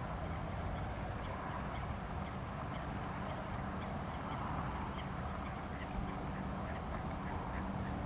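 Ducks calling in a run of short, repeated quacks that grow more frequent in the second half, over a steady low rumble.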